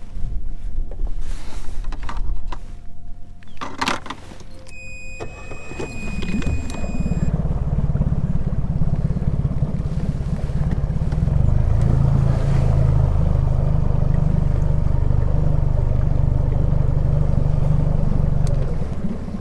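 A boat's outboard motor starts running about six seconds in and hums steadily, picking up a little about halfway through as the boat moves. Before that there is wind on the microphone, a few knocks, and a short high electronic beep.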